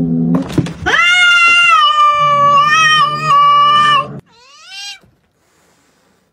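A cat's long, drawn-out yowl, held steady for about three seconds, followed by a shorter call that rises and falls.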